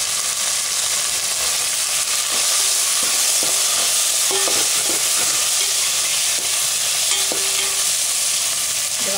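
Onions and tomatoes sizzling in hot oil in a stainless steel pot, stirred with a perforated metal ladle. A steady hiss throughout, with the ladle's scrapes and knocks against the pot now and then.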